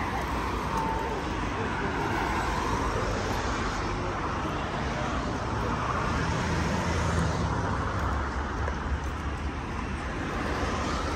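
Road traffic on a city street: cars passing on the road beside the pavement, a steady noise of tyres and engines that swells as vehicles go by, loudest about seven seconds in.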